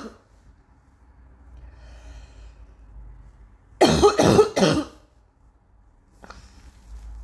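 A person coughing: a quick run of three harsh coughs about four seconds in, part of a persistent, lingering cough.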